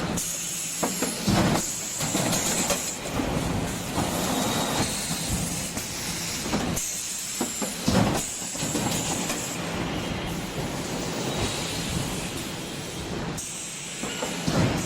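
Factory machinery running with a continuous clatter and hiss, changing abruptly several times.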